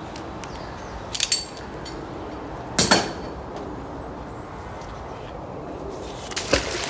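Metal clanking as a steel scaffold clamp is handled off a magnet-fishing magnet: a couple of light clinks about a second in, then one loud, sharp clank just under three seconds in. Near the end the thrown magnet lands in the canal with a splash.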